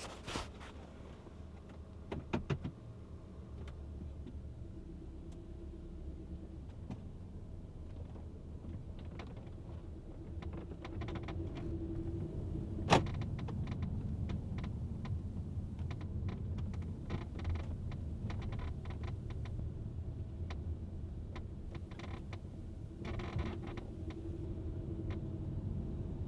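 Cabin of a moving Honda Stepwgn RP3 minivan: steady road and drivetrain rumble with scattered creaks and clicks from the second-row seats, and one sharp knock about halfway. The seat creak comes out with vibration and is barely heard on smooth straight road; the owner expects something in the seat needs lubricating.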